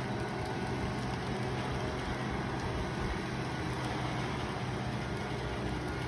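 An engine running steadily: a low, even drone under a constant rush of noise.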